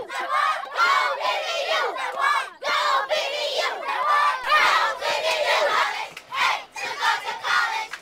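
A group of children shouting and chanting together in loud repeated bursts, inside a school bus.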